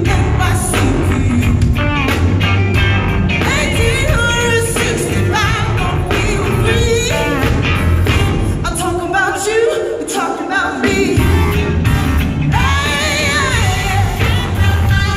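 A live band plays with a woman singing lead, her voice wavering with vibrato over a heavy bass line. The bass drops out briefly about ten seconds in.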